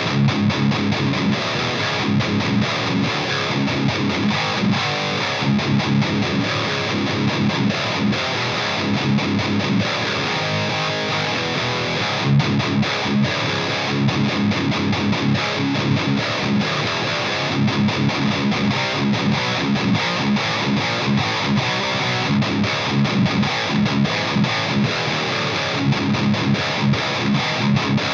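Electric guitar played at high gain through an EVH 5150 III LBX tube amp head: fast, distorted picked riffing with heavy low notes.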